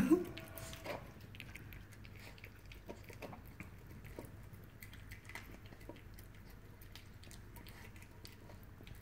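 A Maltese puppy eating soft, blended food from a bowl: faint wet chewing and licking, made of many small, irregular clicks and smacks.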